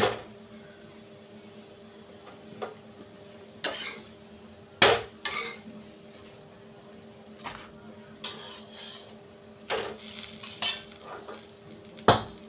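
Metal spatula and iron pans clanking and scraping on a gas stove as parathas are turned and moved: sharp, irregular clinks every second or so, with a steady low hum beneath.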